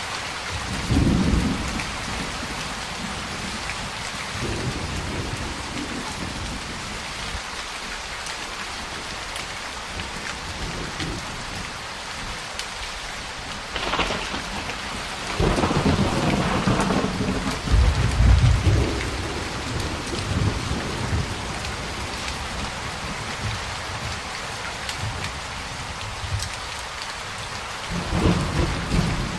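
Steady heavy rain, with thunder rolling over it: a low rumble about a second in, a sharp crack about halfway through followed by a long rumble, and another rumble near the end.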